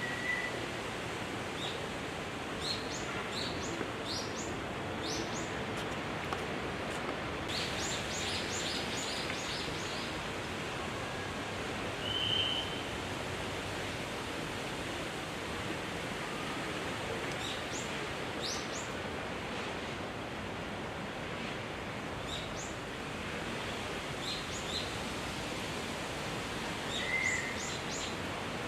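Wild birds calling over a steady rushing background noise: many short, high chirps scattered through, and a louder, lower call three times, near the start, about twelve seconds in and near the end.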